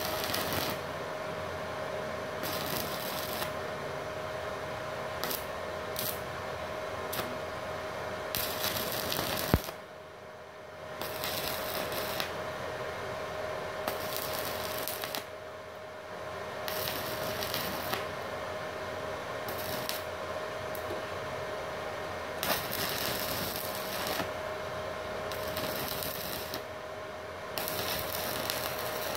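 A stick (MMA) welding arc from a small MultiPro inverter welder crackles through a run of short tack welds, breaking off briefly about ten, fifteen and twenty-seven seconds in. A steady faint tone runs underneath. The welding is kept to short tacks because longer runs trip the 900-watt household supply's breaker.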